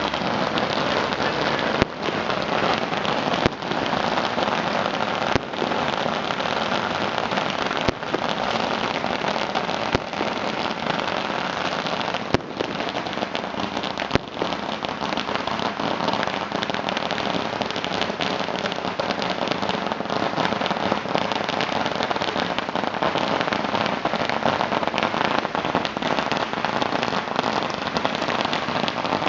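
Firecrackers going off in a dense, unbroken crackle, with a few louder bangs standing out every couple of seconds in the first half.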